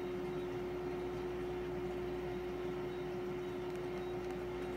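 Steady background hum with a single pitch held constant over an even hiss; nothing else happens.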